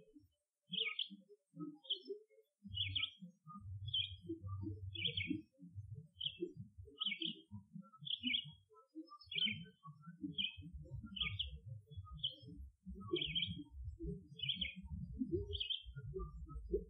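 A songbird repeating a short high chirp about once a second, over irregular low rumbling bursts.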